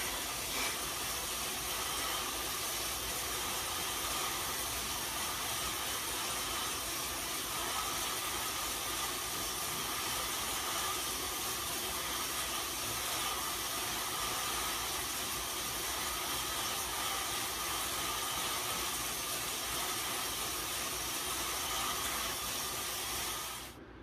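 Steady mechanical whir and hiss, which cuts off abruptly near the end.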